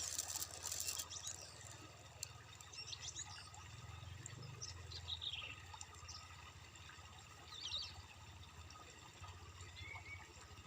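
Small stream flowing with a steady trickling rush, louder for the first second or so, while birds chirp briefly several times.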